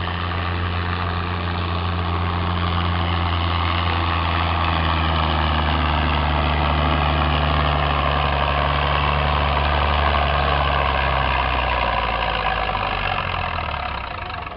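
Pulling tractor's engine running hard under load as it drags the weight-transfer sled down the track. Its pitch sinks slowly throughout, and the sound fades away near the end.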